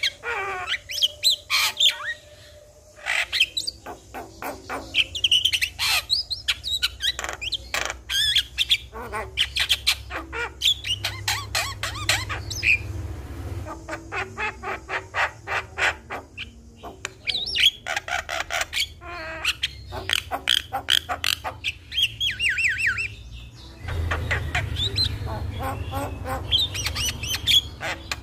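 Javan myna in full song: rapid clicking rattles mixed with rising and falling whistled notes and harsh squawks, in phrases broken by short pauses.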